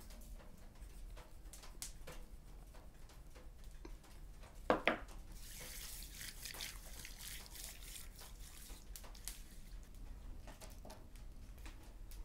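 A hand rubbing seasoning into a wet raw catfish fillet: soft, wet smearing and rasping, with a sharp knock about five seconds in and scattered light ticks.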